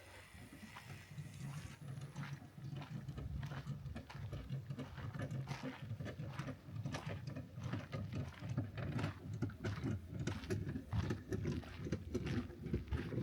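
Footsteps and irregular knocks on wooden boards, a few a second, over a low rumble.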